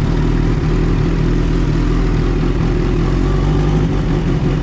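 Kawasaki Ninja H2's supercharged inline-four engine running steadily at low revs, with no revving.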